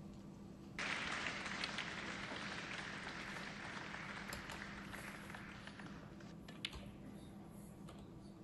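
Audience applause in a snooker arena, breaking out suddenly about a second in and fading away over several seconds.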